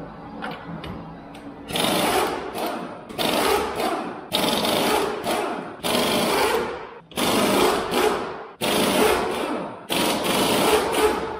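Pneumatic impact wrench hammering off the lug nuts of a pickup's front wheel: a rapid rattling burst for each nut, about seven in a row with short pauses between.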